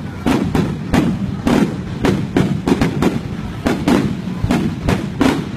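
Aerial fireworks display: shells bursting in quick succession, about three bangs a second, each with a short trailing rumble.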